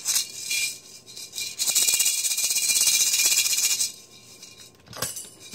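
Maracas shaken: a few short rattles at first, then a steady continuous shake for about two seconds, which stops about four seconds in; a single click near the end.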